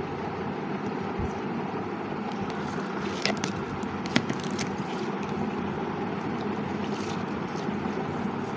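Steady mechanical background hum with a few light clicks and taps as multimeter test leads and wires are handled.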